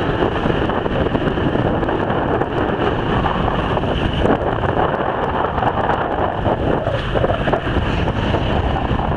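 Strong wind buffeting the microphone aboard a boat, mixed with the wash of rough, choppy sea. A dense, steady noise with no distinct splashes or knocks standing out.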